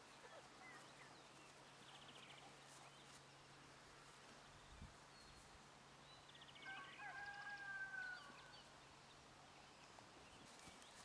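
Quiet outdoor ambience in which a distant rooster crows once, a held call lasting about a second and a half about two-thirds of the way through, with faint chirps and trills from small birds.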